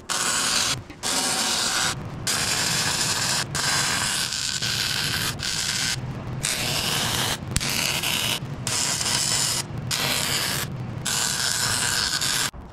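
MIG welding on a steel truck frame: about ten short weld beads of a second or so each, separated by brief pauses, a loud steady hiss-and-crackle while the arc is struck.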